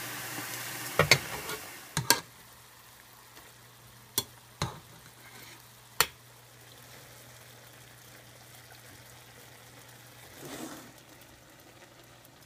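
Spoon knocking and clinking against the copper pot and frying pan as boiled gnocchi are scooped out and dropped into the pan, about seven sharp knocks over the first six seconds. Under them a pan of lamb kidneys and mushrooms sizzles, a steady hiss for the first second and faint after that.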